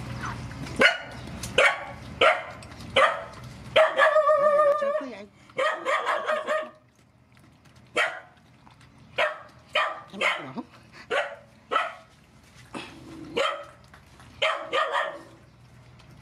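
A dog barking over and over in short barks, about one every half second to a second, with one longer wavering whine about four seconds in.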